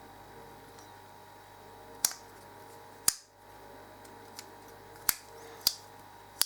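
Tesla MT-05 multitool's folding implements clicking as they are snapped open and shut: five sharp metallic clicks, two close together near the end, over a faint steady hum.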